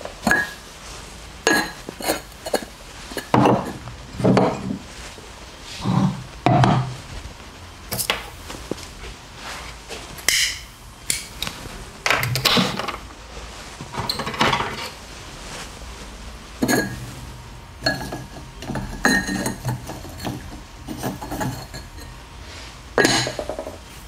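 Glass jars, bottles and pots clinking and knocking as they are picked up and set down on a counter, in irregular handling noises, some with a short ringing tone.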